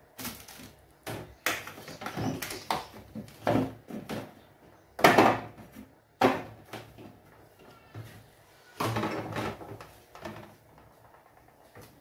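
Food items being handled and set onto the shelves and into the plastic door bins of a refrigerator: irregular rustling and knocks, the loudest about five seconds in.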